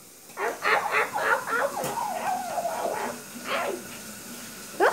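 A child imitating a puppy: a quick run of short yips, then a longer wavering whine, and a quick rising yelp near the end.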